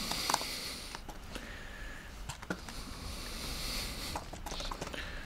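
Sparse computer keyboard keystrokes, a handful of separate clicks, over a soft hiss.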